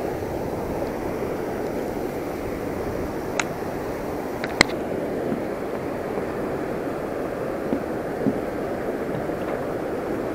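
Steady rushing noise of water pouring through the dam's outflow, mixed with wind. Two short sharp clicks come about three and a half and four and a half seconds in.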